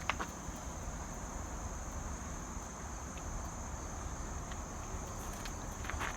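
Steady, high-pitched drone of crickets or similar insects, over a low rumble of wind and distant background noise, with a few faint ticks.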